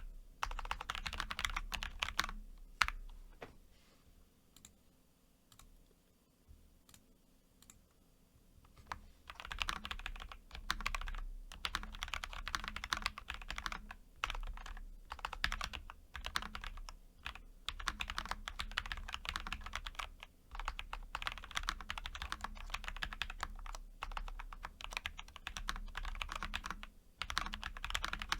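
Typing on a TES68 mechanical keyboard fitted with lubed Gateron Box Ink V2 Pink linear switches and lubed stock stabilizers: a fast, continuous run of keystrokes. It thins to a few scattered presses for several seconds about four seconds in, then picks back up.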